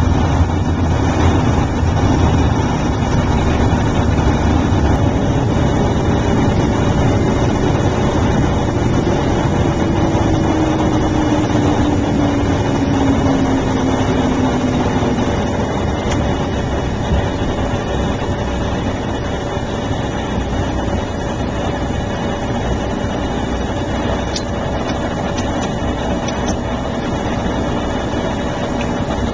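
Beechcraft King Air's twin PT6A turboprop engines and propellers running at low power during the landing rollout and turn-off, a steady loud drone. About a third of the way in, a tone slides slowly down in pitch as the aircraft slows.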